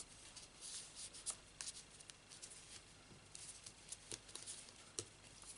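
Faint rustling and light taps of fingertips pressing a freshly glued paper die-cut down onto a card.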